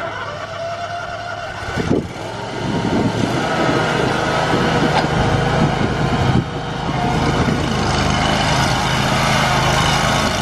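The two-cylinder Kawasaki FX850V gas engine of a Gravely Pro Turn 260 zero-turn mower running steadily. It gets louder from about two seconds in and dips briefly about halfway through.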